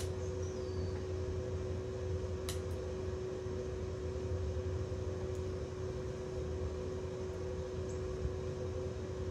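A generator running steadily in the background, a constant hum with a low rumble under it, and a faint tick about two and a half seconds in.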